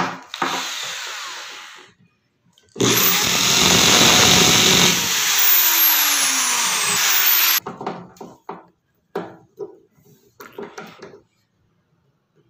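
Electric drill boring a pilot hole through a metal drawer slide into the drawer's wooden side, running for about five seconds, its pitch falling as it slows before it stops. Light clicks and knocks follow as tools are handled.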